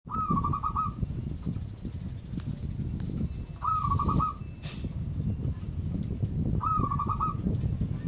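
Zebra dove (perkutut) cooing its song three times, about three seconds apart: each phrase a rising first note followed by a quick run of about five short notes. A steady low rumble lies underneath.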